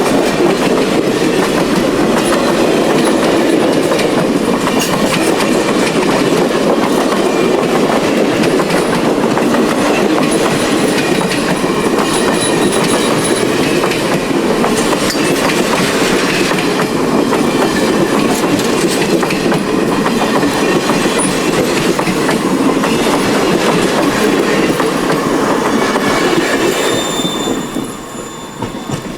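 Cars of the train hauled by Union Pacific 844 rolling past: a steady rumble with wheels clicking over the rail joints and a faint thin wheel squeal on the curve. The sound falls away near the end as the train goes by.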